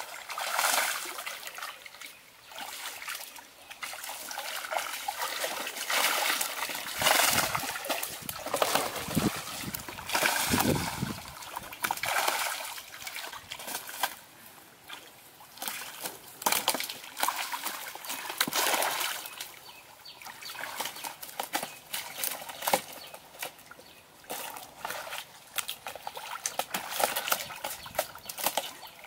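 Shallow muddy pond water splashing and sloshing in irregular bursts as a wading man gropes and grabs for fish with his hands.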